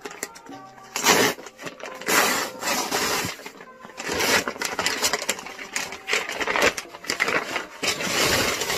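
Brown paper mailing bag torn open and crumpled by hand: loud crinkling and tearing in repeated bursts.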